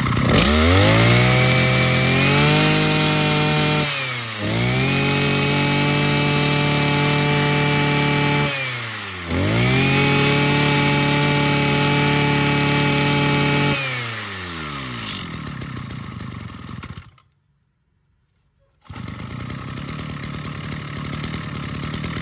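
Small 33cc two-stroke engine of a Mitsubishi TL33 brush cutter, revved up to full throttle three times and held there about four seconds each, dropping back between runs. It then falls to idle, cuts out for about a second and a half, and idles steadily again near the end.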